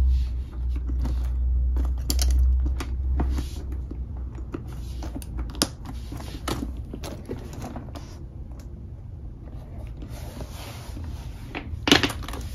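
Hands rummaging in a packed leather bucket bag: rustling and scattered small clicks and knocks of items and metal hardware shifting, with a low rumble of handling in the first few seconds and a sharp click near the end.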